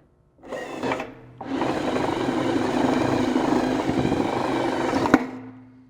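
Electric drill driving a BWS-38-MF-DA wire stripping machine as a thick 500 MCM cable is fed through and its insulation slit: a short burst of running, then about four seconds of steady running, a sharp click near the end, and the motor winding down.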